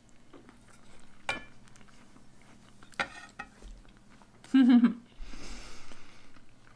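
A metal fork clinking against a ceramic dinner plate while eating, one sharp clink with a brief ring about a second in and smaller ticks later. About two-thirds through comes a short, loud closed-mouth hum with a full mouth, followed by a soft breath.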